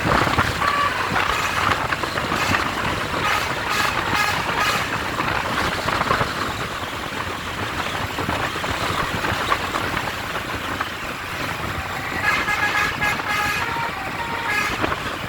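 Basuri multi-tone bus or truck horn tooting a run of short notes, falling back to a noisy background for several seconds midway before another run of notes near the end.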